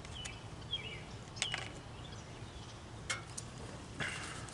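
Outdoor ambience: small birds chirping now and then over a steady low hum, with a few sharp clicks.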